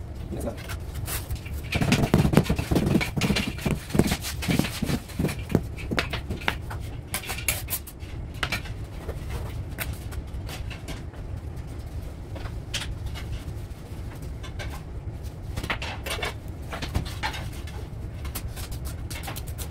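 A mason's trowel scraping and knocking in wet mortar as floor tiles are bedded, a close clatter of scrapes and knocks that is loudest in a run from about two to six seconds in, over a steady low hum.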